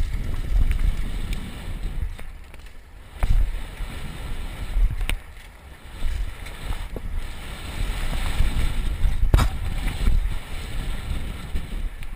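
Downhill mountain bike ride heard from a helmet camera: a steady, rough rumble of wind buffeting the microphone and tyres rolling over a dirt and gravel trail, with a few sharp knocks and rattles from the bike as it hits bumps.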